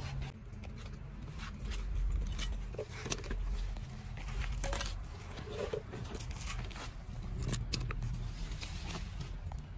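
Scattered short clicks and light knocks of garden hand tools (pruning shears and a kitchen knife) being picked up, opened and set down on a concrete slab.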